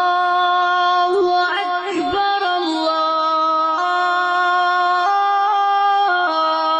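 Islamic devotional singing: a melodic voice holding long notes that step up and down in pitch, with a brief ornamented turn about two seconds in.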